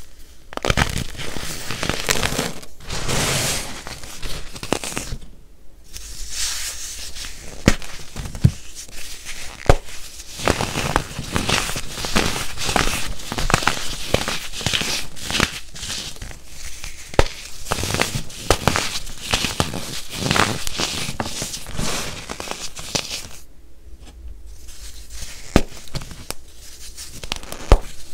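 Compressed baking soda crumbling and crunching between fingers: a dense crackling crunch with sharp snaps here and there. It comes in runs, with brief pauses about five seconds in and near the end.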